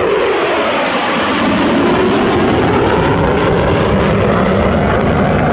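Fighter jet, an F-16 with its afterburner lit, making a fast low pass. The jet roar is loud and steady, and its pitch drops in the first second as the jet goes by.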